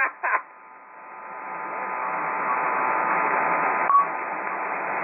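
Single-sideband shortwave receiver hiss on the 40-metre ham band between transmissions, swelling up over the first two seconds and then holding steady. Faint steady heterodyne whistles run through it, with a short beep about four seconds in.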